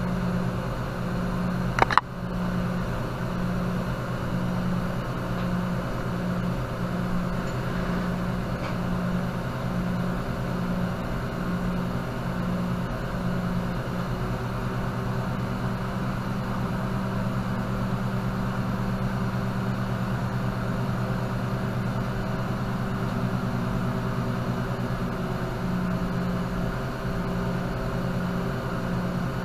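Steady machine hum with a low tone that pulses on and off for much of the time and holds steady for a stretch in the middle. There is one sharp clink about two seconds in.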